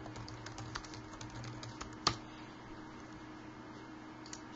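Typing on a computer keyboard: a quick run of light key clicks for about two seconds, then one sharper, louder click, over a faint steady hum.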